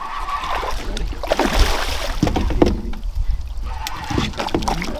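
A hooked coho salmon splashing at the surface beside an aluminium fishing boat, with water sloshing, a few sharp splashes or knocks between one and three seconds in, and a steady low rumble underneath.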